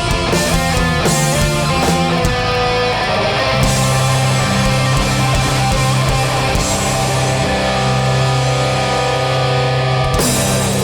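Hardcore punk band playing live, with distorted electric guitars and drums in an instrumental ending of a song. Long held chords ring through most of it and are cut off sharply near the end.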